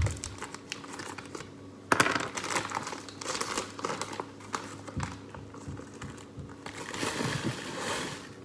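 A sugar bag crinkling and rustling as it is tipped and shaken to empty the last of the sugar, with a sharper rustle about two seconds in.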